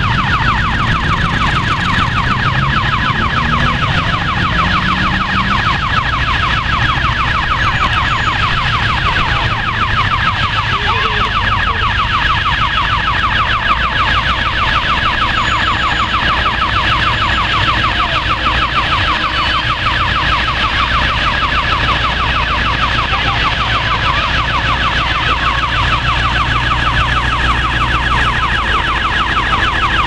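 Electronic warning siren at a railway level crossing sounding continuously: a high warble that repeats rapidly and evenly, over a low rumble.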